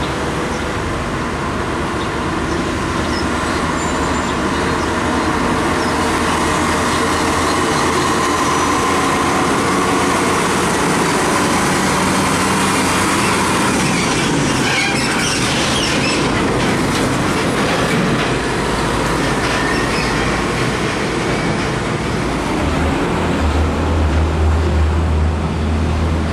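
UD Trucks CWB 450 diesel tractor-trailer loaded with steel coils passing close by: engine running and the heavy flatbed trailer rattling over the road. A faint high squeal comes in the middle, with a few knocks about halfway through. Near the end a low engine hum from the next truck gets louder.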